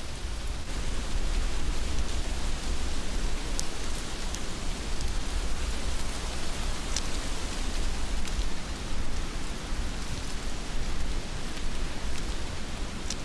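Heavy rain falling steadily in an even hiss, with a deep low rumble underneath and a few sharp ticks standing out, about four of them.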